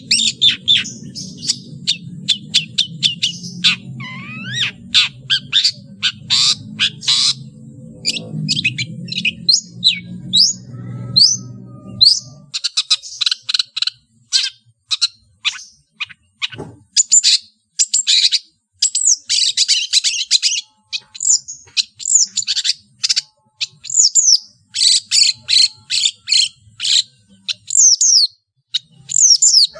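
Long-tailed shrike (cendet) singing a fast, continuous run of sharp high chirps and down-slurred whistles, packed with notes mimicked from other birds. A low hum runs underneath for the first twelve seconds, then stops abruptly.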